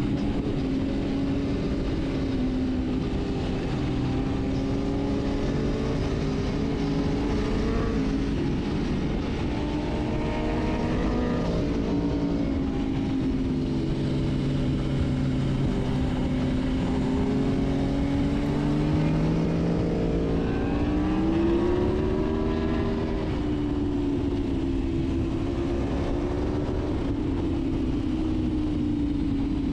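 Sport motorcycle engine running at road speed under steady wind rush, its pitch drifting with the throttle. It climbs about twenty seconds in as the bike accelerates, then eases back.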